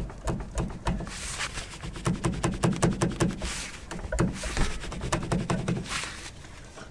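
Series of light knocks and clicks from a Chevy Colorado ZR2's front upper control arm being moved, coming quickest around the middle. The play in the aftermarket Peak Suspension upper control arm bushings is what the owner takes for the source of the truck's clunking noise.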